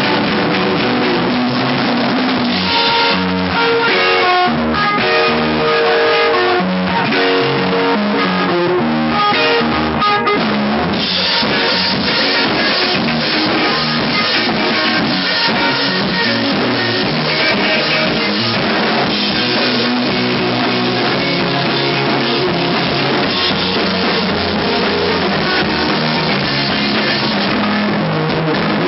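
Rock band playing live, loud electric guitars over a pounding drum kit, in a poor-quality recording with the top end cut off.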